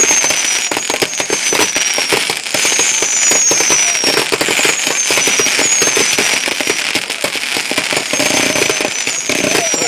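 Fireworks going off in a dense, rapid crackle, with short high whistles falling in pitch about once a second over it.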